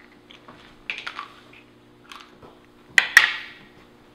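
Small plastic medicine cups tapping and clicking on a hard countertop, with two sharper knocks about three seconds in as a cup is set down. A faint steady hum runs underneath.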